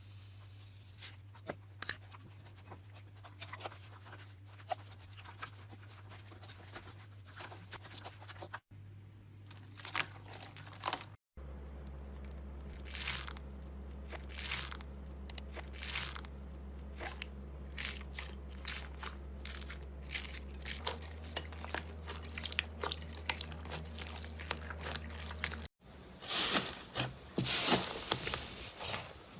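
Slime being poked, squeezed and pressed by hand: a run of crisp clicks, pops and crunches, coming in several short clips that cut from one to the next, with a faint low hum underneath.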